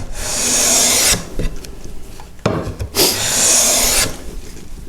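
Hand plane with a freshly sharpened blade pushed along a tulip poplar board, taking shavings in two long strokes: one lasting about a second, the second starting about two and a half seconds in. Each stroke is a steady hiss of the blade cutting wood.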